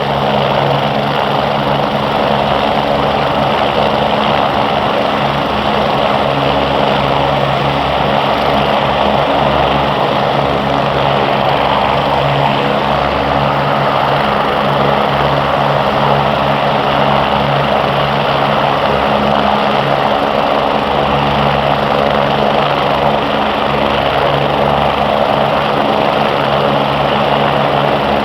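MBB/Kawasaki BK117 twin-engine helicopters running, a steady, unchanging drone of turbine engines and rotors.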